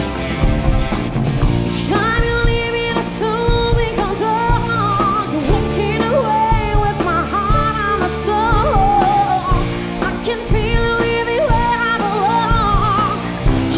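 A woman singing a pop-rock song with a live band, electric guitar and bass behind her. Her singing comes in about two seconds in.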